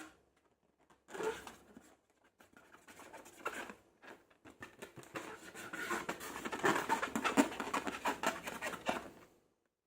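Slime being squeezed and worked by hand: a dense run of fine wet crackles and small clicking pops that grows louder in the second half and stops near the end.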